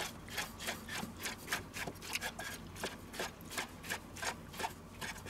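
Chef's knife slicing through sausages into rounds on a wooden cutting board, the blade knocking the board at about four cuts a second.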